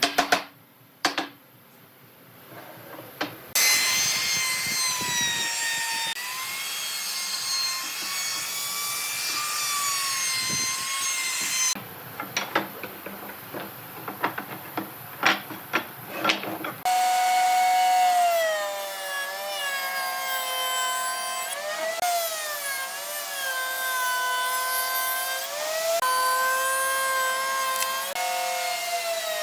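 Electric power tool cutting wood, its motor pitch dipping and rising under load. Knocks and clatter of wood being handled come near the start and again about midway, between the stretches of cutting.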